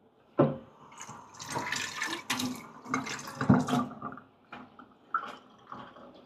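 Tap water running over an espresso portafilter as it is rinsed in the sink. The water starts suddenly, runs for about three and a half seconds and stops, followed by a few short knocks.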